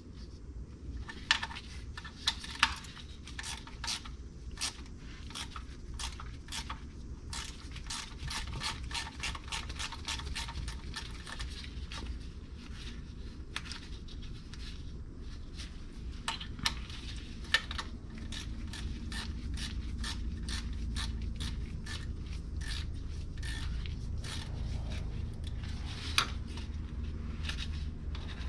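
Hand ratchet clicking in short, uneven runs while a 10 mm fastener is worked loose by the starter, with metal tapping and scraping. A steady low hum runs underneath.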